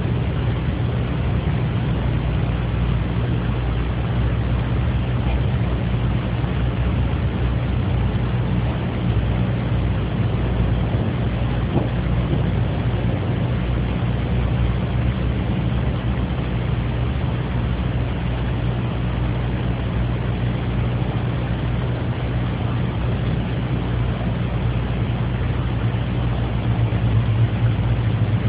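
Steady low hum with an even hiss: room noise picked up by a mobile phone's voice recorder, with no distinct event standing out.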